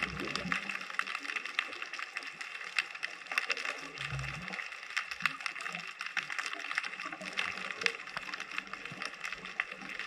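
Underwater ambience through a GoPro in its dive housing: a dense, steady crackle of tiny clicks, with a brief low thump at the start and another about four seconds in.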